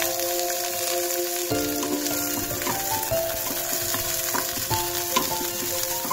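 Chopped onion and capsicum sizzling in hot oil in a non-stick frying pan, with the scrape and tap of a wooden spatula stirring them. Soft melodic background music plays along.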